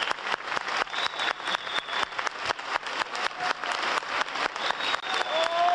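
Concert audience applauding in a fast, even beat of many hands clapping together, with a held high tone joining in near the end.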